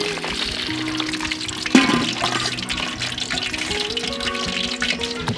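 Fish deep-frying in hot oil in a wok, a steady sizzle under background music, with one sharp knock about two seconds in.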